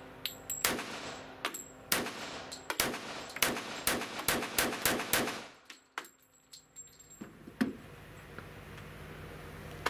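CZ 97 B .45 ACP pistol firing a string of about a dozen shots at an indoor range, spaced a fraction of a second apart. After a pause, one more shot comes a couple of seconds later.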